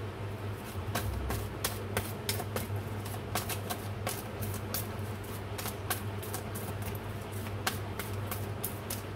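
A deck of oracle cards being shuffled by hand, the cards clicking and slapping together in quick, uneven strokes, several a second.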